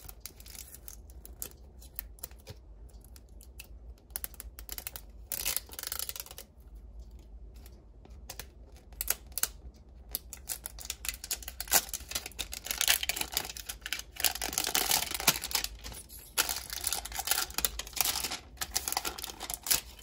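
Hands opening a Barbie Color Reveal package: scattered clicks and taps from the plastic packaging, becoming denser crinkling and tearing of the wrapping in the second half.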